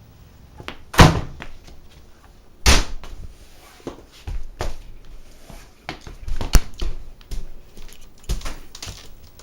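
A series of knocks and thumps: two loud ones about a second in and near the three-second mark, then many lighter clicks and taps.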